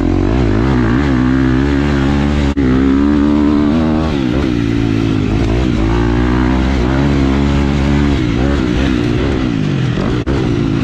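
Husqvarna FC four-stroke motocross bike engine revving up and down as it is ridden through the turns and straights of a dirt track, its pitch repeatedly rising and falling with the throttle and gear changes.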